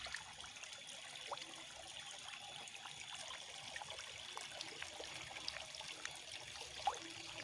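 Koi churning at the pond surface: faint trickling and splashing water with many small scattered plops and ticks.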